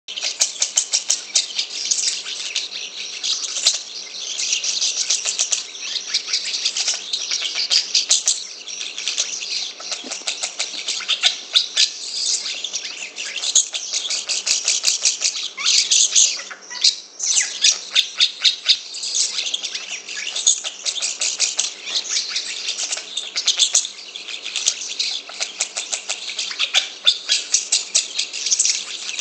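Asian pied starling (jalak suren) chattering nonstop in a fast stream of high notes, with a short break about two-thirds of the way through.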